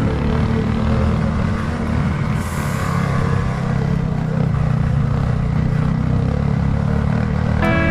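Off-road motorcycle engine running steadily, with a short hiss about two and a half seconds in.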